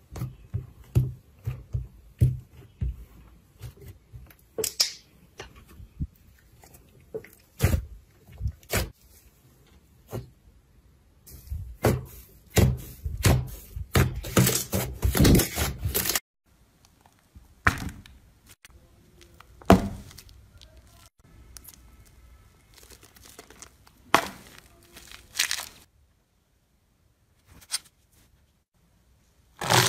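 Slime being handled: a dark crunchy layer pressed and broken over soft slime gives a dense run of crackles, snaps and tearing sounds. About halfway the sound cuts off, and sparser sticky pops and tearing follow as slime is poked and stretched, with a few seconds of silence near the end.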